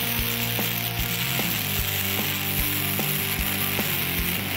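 Wire-feed (MIG) welder arc crackling steadily as a bead is laid on 1/2-inch steel plate. Underneath runs background music with a steady beat.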